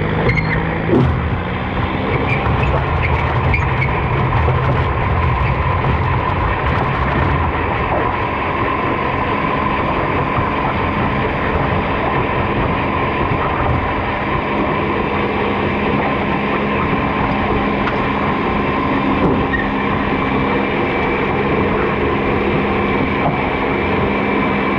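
Diesel garden tractor engine running hard under load as it pulls the sled, a steady drone with a whine over it. Scattered clicks and rattles come through during the first several seconds.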